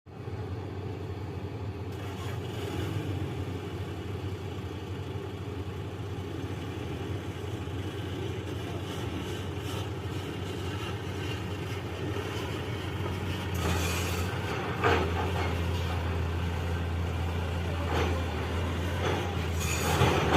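Heavy diesel vehicle engine running steadily with a low hum. It grows louder about two-thirds of the way through, with a few short sharp knocks or hisses.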